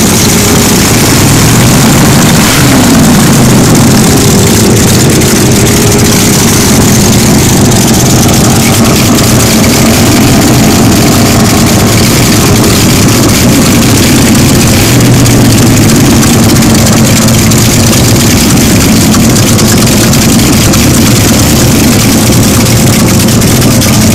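Loud hot rod engines running, one revved up and back down about three seconds in, over the steady drone of other engines.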